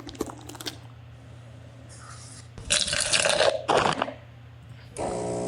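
Stock 'foam' sound effects previewed on a computer. There are a few clicks at first, then a loud hissing spray-like noise for about a second and a half from roughly three seconds in. Near the end comes a steady buzzy tone lasting about a second.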